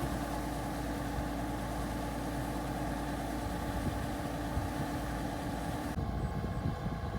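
Engine of a farm machine running steadily, with a hiss over it that drops away about six seconds in.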